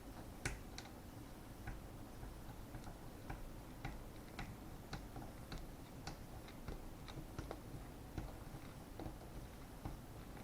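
Faint, irregular small clicks, about two a second, of a hex key working a screw as the M4 handguard is tightened in place.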